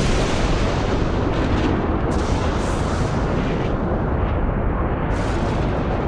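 Godzilla Amphibia sound effect from Godzilla Singular Point: a loud, continuous rumbling with crackling, no clear pitched cry in it.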